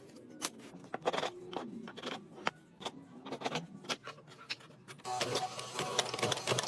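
Woodworking noise: scattered knocks and taps, then about five seconds in a busy, rapid mechanical rattle sets in.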